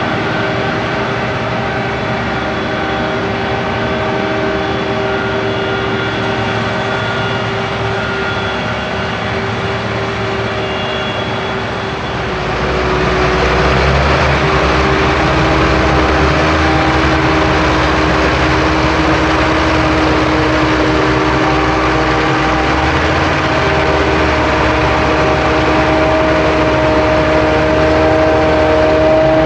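Heavy maize-harvesting machinery running steadily, a forage harvester and tractors, with a steady whine of several held tones over the engine rumble. It gets louder and rougher about twelve seconds in.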